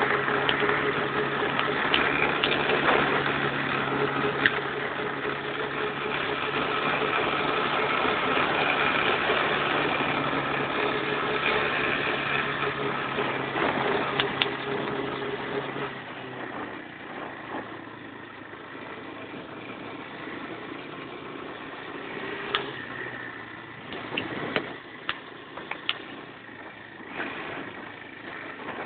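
Quad bike engine running steadily, then dropping to a quieter idle a little over halfway through, with a few sharp knocks and clicks in the second half.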